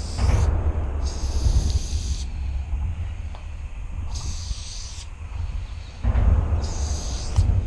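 Aerosol spray-paint can spraying in four separate hissing bursts of about a second each, every burst starting and stopping sharply as the nozzle is pressed and released. A low rumble of wind on the microphone lies underneath.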